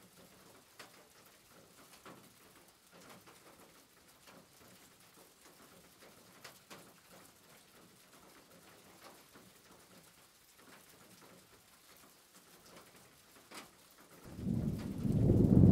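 Faint crackling of chopped onions frying in oil as a wooden spoon stirs them. About fourteen seconds in, a much louder low rushing noise starts as grated carrot goes into the hot pan.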